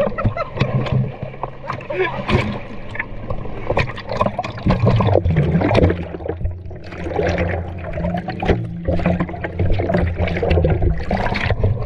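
Jet ski engine running steadily under loud rushing and splashing water, the camera dipping below the surface partway through.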